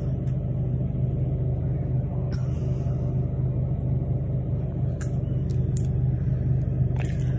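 Steady low rumble of a car on the move, an even engine and road drone.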